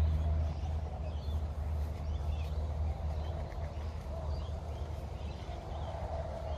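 Stihl HT131 pole saw's small four-stroke (4-MIX) engine idling steadily.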